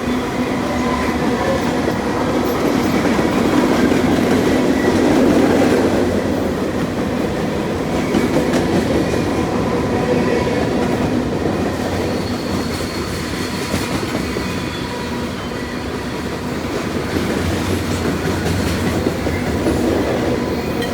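CN freight train's cars rolling past: a steady rumble with the clicking of wheels over rail joints and a thin wheel squeal, loudest a few seconds in.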